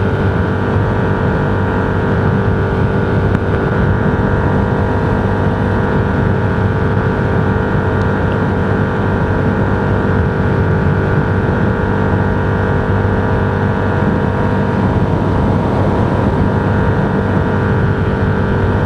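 Steady engine drone and road noise of a vehicle cruising on the highway, unchanging throughout.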